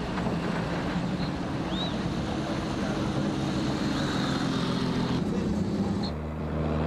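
Vintage rally cars' engines running as they drive past, over a general street noise. Near the end the sound cuts to another car's steadier engine note.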